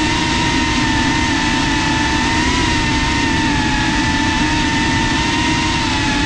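FPV quadcopter's brushless motors and propellers whining steadily in cruise, picked up close by the GoPro mounted on it. The pitch holds nearly level, with small wavers as the throttle shifts.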